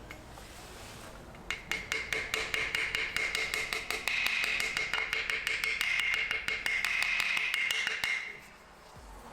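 A power tool running for about seven seconds, giving a steady high whine with rapid, even clicking of about eight clicks a second, then stopping.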